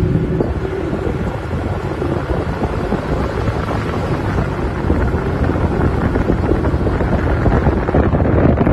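Wind rushing over the microphone of a moving vehicle, mixed with the steady rumble of the vehicle driving on the road.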